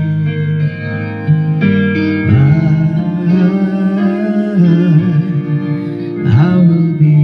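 Karaoke machine playing a backing track through its built-in speaker, with a low voice singing along from about two seconds in and again near the end.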